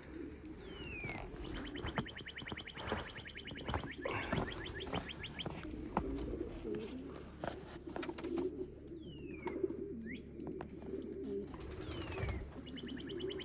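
A flock of pigeons cooing steadily in a loft, with a few short falling whistles and bursts of rapid ticking over the cooing.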